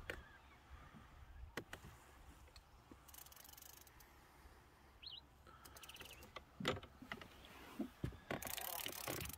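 Fishing reel clicking in short bursts of quick, even clicks while a large kob is being played on the line, with a few handling knocks and a louder rush of noise near the end.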